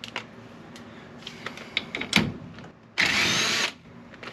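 Cordless impact driver running in one short burst of under a second, about three seconds in, spinning out a bolt that holds a brake drum on. Before it come a few light clicks and a sharp metallic knock.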